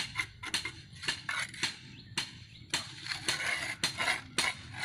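Irregular sharp taps, knocks and scrapes of masonry work: hand tools and concrete blocks clinking against each other and scraping in mortar as blocks are laid.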